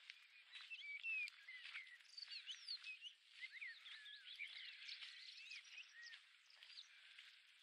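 Faint woodland birdsong: several songbirds singing quick, varied whistled phrases of rising and falling notes, busiest in the middle, over a steady soft hiss.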